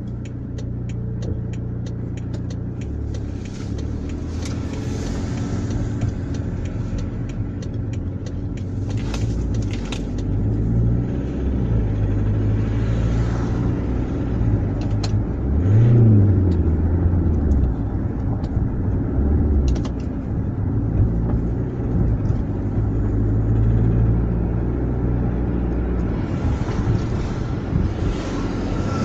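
BMW F10 520d's four-cylinder diesel engine heard from inside the cabin while driving, its note rising and falling with speed and revs, loudest at a brief rev about halfway through. Beneath it runs the clatter that the owner puts down to a rattling injector.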